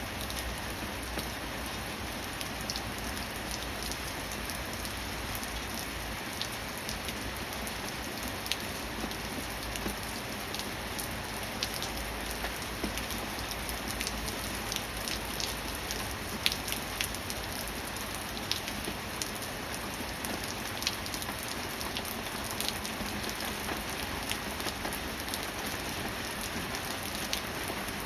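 Steady rain falling: an even hiss with many single drops ticking sharply as they hit a surface.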